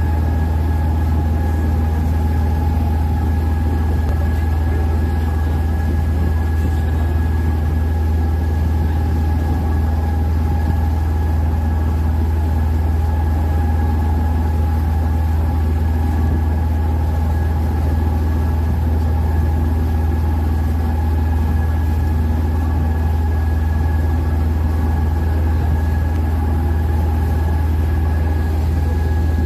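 Open tour boat's engine running steadily under way: a constant low drone with a faint steady whine on top.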